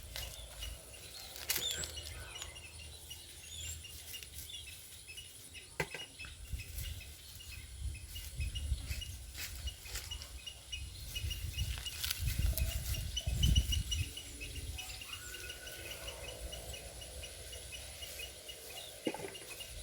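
Rural outdoor ambience: small birds chirping over a steady high insect buzz, with scattered clicks and low rumbles.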